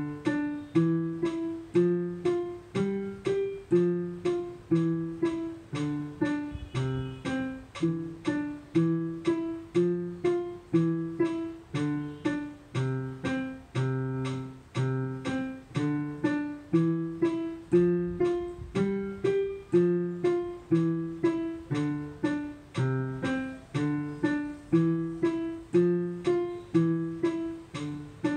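Digital piano playing a simple beginner's piece with both hands: a melody over low left-hand notes at a steady, even pulse of about two beats a second.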